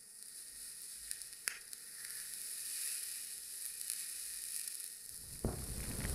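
Overloaded carbon-film resistor sizzling with a high hiss and a few sharp crackles as it smokes and its coating cracks, the hiss slowly growing; about five and a half seconds in it bursts into flame with a sudden loud rush.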